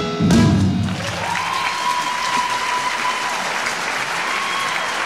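Audience applauding as the last chord of the musical number dies away. A steady high tone sounds through the applause for about two seconds, then briefly again near the end.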